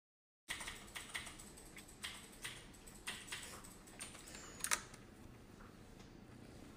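Keys of a computer keyboard clicking irregularly as they are typed on, starting about half a second in and thinning out near the end.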